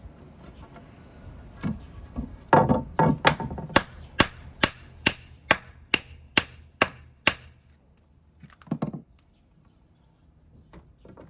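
A hand tool striking wood: a few heavier blows, then a run of about a dozen sharp, evenly spaced strikes about two a second, then a single duller knock near the end.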